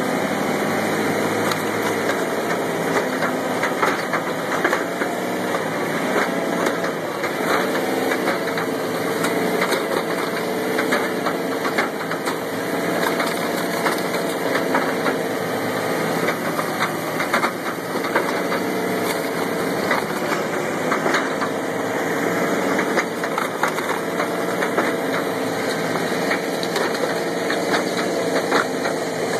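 The engine driving a hydraulic log splitter and firewood conveyor running steadily, its pitch dipping briefly now and then, with frequent knocks and clatter of split wood.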